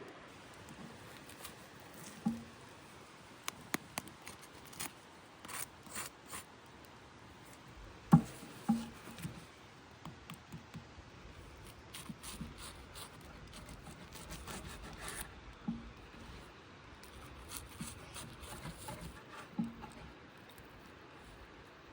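Scattered light clicks, taps and scrapes of utensils and cookware being handled, with a sharper knock about eight seconds in.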